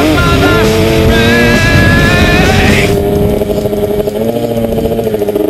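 Small two-stroke motocross bike engines running hard. A high engine whine climbs and then drops away about three seconds in, leaving a lower, steady engine note.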